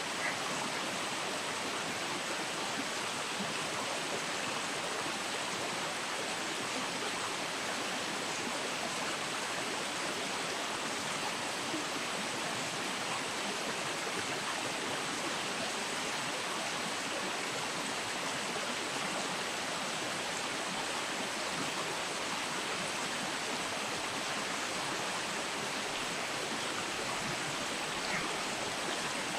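Steady rush of flowing river water at an even level throughout.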